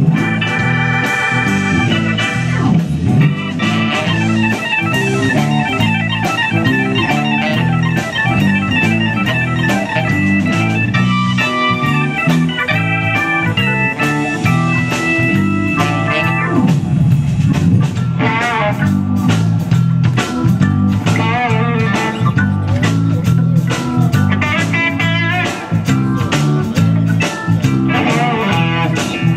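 Background music: an instrumental with a steady beat.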